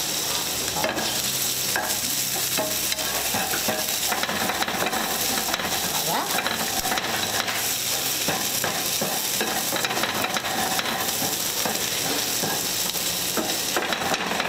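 Shrimp frying in butter with garlic and onion in a nonstick frying pan, sizzling steadily, with a spatula stirring and scraping them around the pan.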